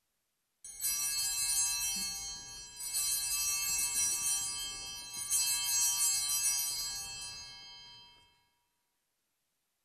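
Altar bell rung three times at the elevation of the chalice after the consecration: three bright ringing strikes a couple of seconds apart, each ringing on and fading, the last dying away near the end.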